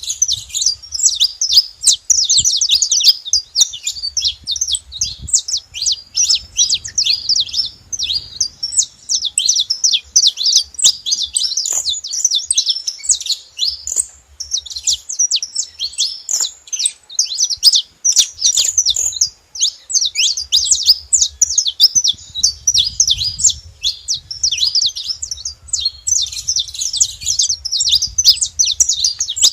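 A group of saffron finches chirping and singing together: a dense, continuous chatter of quick high chirps, with a brief lull about halfway through.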